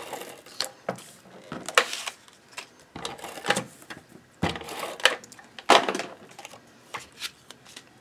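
Hands handling paper and plastic craft tools on a cutting mat: irregular clicks, taps and short rustles of paper.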